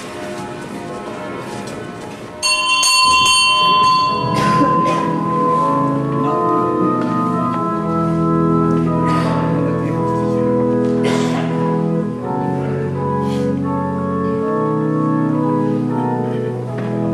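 Church organ begins playing suddenly about two and a half seconds in, holding full chords that change slowly, with bright high pipes at the first chord. Before it, a quieter stretch of church bells ringing.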